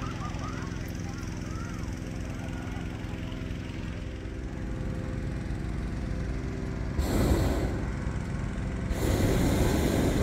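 Hot air balloon propane burner firing in loud roaring blasts, the first about seven seconds in and a second, stronger one about two seconds later, over the steady hum of a small engine and a few crowd voices.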